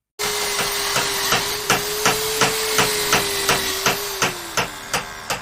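Hammer blows repeated at an even pace, about three a second, over a steady hiss and a steady hum that dips slightly near the end. The sound starts and stops abruptly.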